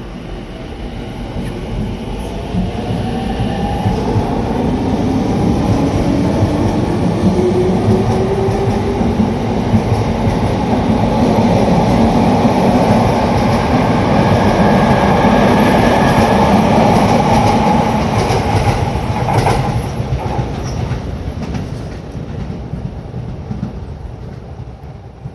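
Sotetsu electric commuter train pulling out of the station and passing close by. Its traction motors whine upward in pitch as it gathers speed over the rumble and clatter of the wheels on the rails, and the sound dies away near the end.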